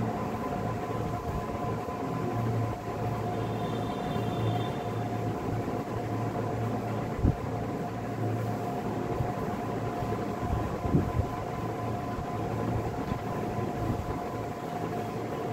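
Steady droning background noise with a low hum and two steady whining tones, broken by two brief knocks about seven and eleven seconds in.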